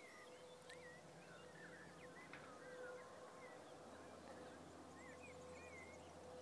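Faint chorus of many small birds chirping and twittering, with a faint steady hum underneath.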